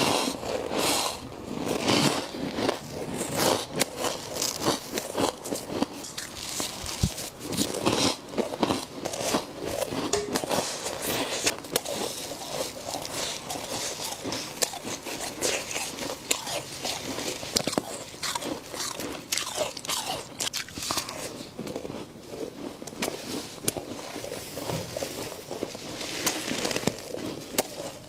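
Close-up biting and chewing of frost: dense, irregular crunching that continues throughout.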